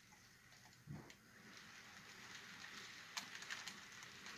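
Faint clicking and crackling of a model railroad switcher and its cars rolling slowly over rough track, with a soft thump about a second in. The clicks grow more frequent toward the end.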